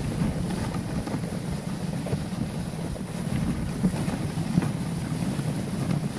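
Dog sled moving over packed snow: steady scraping of the runners, with wind buffeting the microphone.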